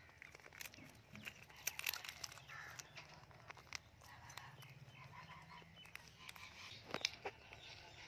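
Indian ringneck parakeet biting and tearing at a peanut shell with its beak: a scatter of faint sharp cracks and crunches of shell, with a couple of louder clicks near the end.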